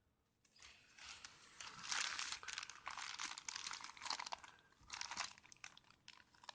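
Packaging being handled while parts are unpacked from a box: irregular crinkling and rustling, starting about half a second in and going on in uneven spurts.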